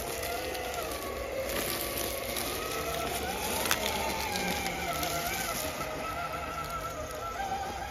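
Brushless motor and drivetrain of a 1/10-scale Axial Capra rock crawler (Hobbywing Fusion SE 1800kv) whining at crawl speed, the pitch wavering up and down with the throttle. There is gear and tyre noise, and a sharp click about three and a half seconds in.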